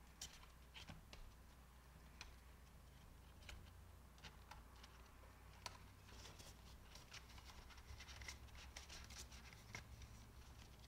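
Faint rustling and soft clicks of paper banknotes being handled and counted, and plastic cash envelopes in a ring binder being flipped, the small ticks coming thicker in the second half.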